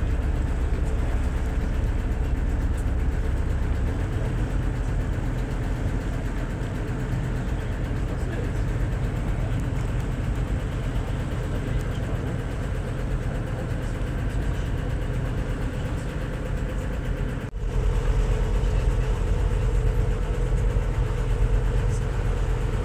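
Motorboat engine running steadily at low speed. It breaks off briefly about three-quarters of the way through, then runs louder with a deeper rumble.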